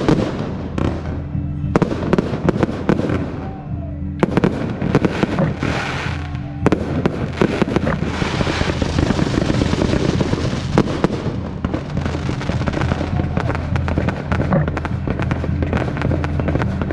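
Fireworks display: a string of sharp bangs from exploding shells, then from about seven seconds in a dense, continuous crackling. Music plays underneath.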